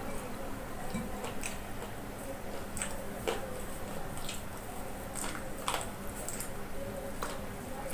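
A person chewing and biting into fried chicken, with scattered short wet mouth clicks and smacks over a faint steady hum.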